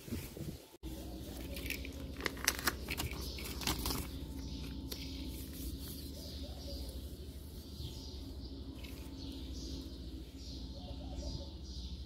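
Paper rustling and crackling as a sheet is handled, then a steady run of short repeated bird chirps, over a low steady hum.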